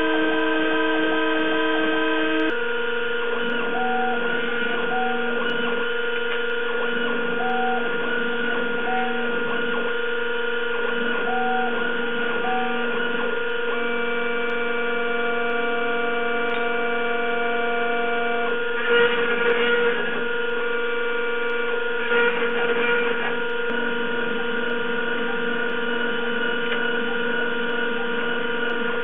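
Roland JWX-30 wax milling machine cutting a jewelry wax model: its spindle and axis motors give a steady whine of several tones. The tones shift after about two seconds, short higher tones come and go as the axes move, and there are two brief rougher spells about two-thirds of the way through.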